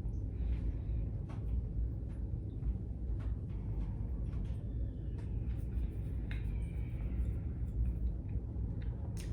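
Steady low rumble with scattered small clicks and taps.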